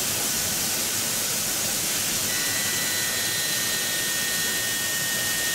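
Steady hiss of workshop background noise, with a thin, steady high whine joining about two seconds in.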